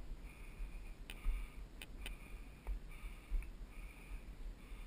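Heavy, rhythmic breathing of a mountain biker pushing a bike up a steep dirt slope, one breath about every half second to second. A few sharp clicks come between one and two seconds in, over a low rumble of wind on the camera's microphone.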